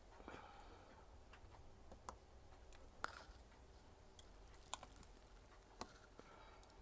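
Near silence with a few separate, sharp small clicks and taps, four or five spread over several seconds, from small parts and tools being handled on a repair bench.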